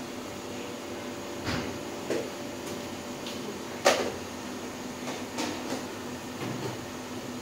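A few short knocks and clinks of kitchen items being handled, the loudest about four seconds in, over a steady background hum and hiss.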